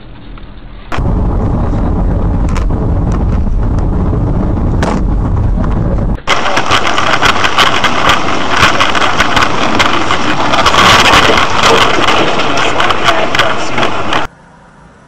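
Car engines running hard under load, very loud. The sound is heard in two spliced stretches that start and stop abruptly: the first is deep and rumbling, the second brighter and full of sharp cracks.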